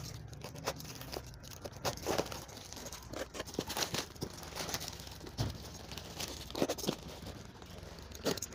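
Clear plastic stretch film being pulled and torn off a cardboard box, crinkling and crackling in irregular bursts.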